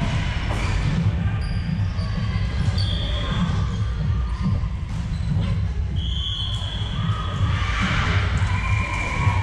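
Indoor volleyball rally on a hardwood court: several sharp slaps of the ball being hit, short high squeaks of sneakers on the floor, and players' calls, over a steady low rumble of the hall.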